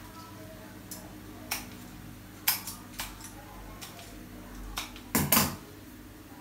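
Scattered sharp metallic clicks and snips of florist's scissors and stems being handled, with a louder clatter of knocks a little after five seconds.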